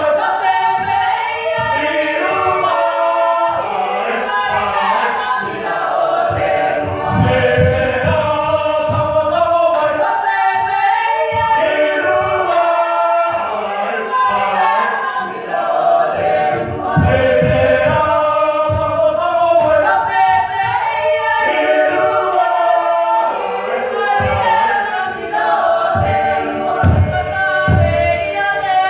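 A choir singing unaccompanied in many-voiced harmony, a Cook Islands choral hymn or song, with low thuds every few seconds.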